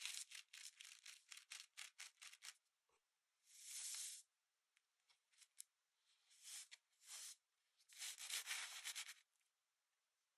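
Kinetic sand crunching and rustling under fingertips as it is pressed and scraped into a plastic cookie cutter: a run of quick short scratches, about four a second, then a few longer swishes.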